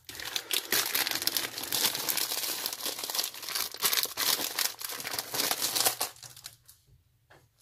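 Clear plastic MRE accessory packet and the small packets inside it crinkling as they are handled, a dense run of crackles that dies down about six seconds in.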